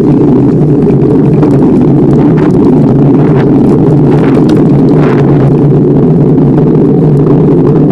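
Loud, steady rumble of a bicycle ride over asphalt: wind buffeting the microphone together with tyre and road noise.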